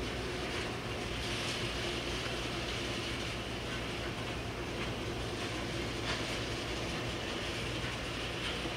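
Freight train of loaded iron-ore wagons rolling away over the rails: a steady rolling rumble of wheels on track, with a faint click now and then.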